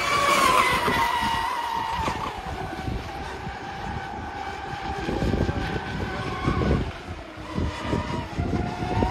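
Fast-electric radio-controlled racing boats running flat out: a high motor whine that slowly falls in pitch and climbs again near the end. Wind buffets the microphone throughout.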